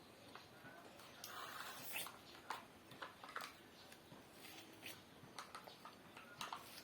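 Faint eating sounds of someone having spicy noodles: irregular wet chewing and lip-smacking clicks, with a short slurp about a second in.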